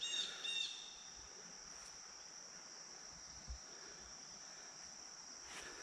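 Faint, steady high-pitched drone of insects, with two quick bird chirps in the first second.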